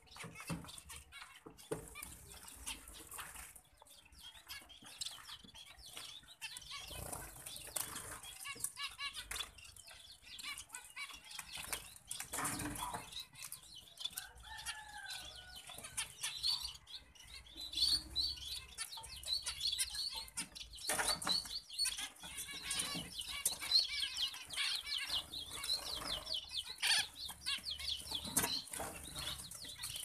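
Zebra finches giving many short, rapid calls and chirps, busier in the second half, with wing flutters and small clicks.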